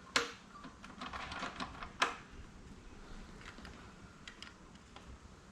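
Small metal clicks and ticks from the XS650 engine's gear-selector parts being worked by hand to ease out the selector fork guide shaft, with two sharper clicks about two seconds apart.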